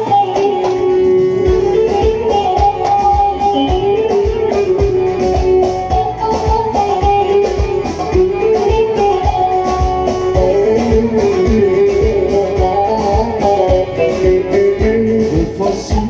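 Live Turkish folk band playing an instrumental passage: a bağlama and keyboard carry the melody over a steady hand-drum beat.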